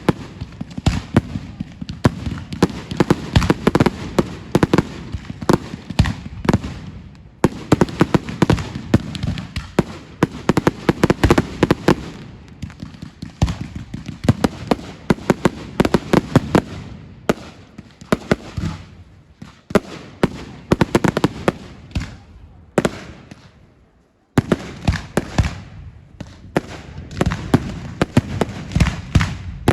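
Fireworks going off: a rapid, dense barrage of crackles and bangs, broken by a short gap about 24 seconds in.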